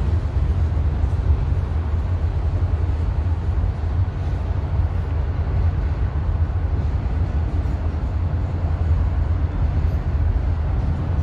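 Steady low rumble of a CSX freight train rolling past.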